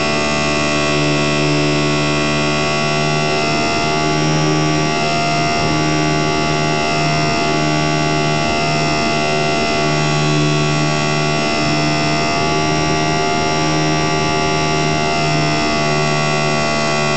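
Electric motor and propeller of a HobbyZone Super Cub RC plane, heard from the onboard camera, whining steadily at constant throttle in flight.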